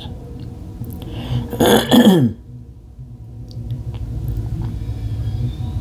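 A woman's short throat noise about two seconds in, sliding down in pitch, over a low steady rumble.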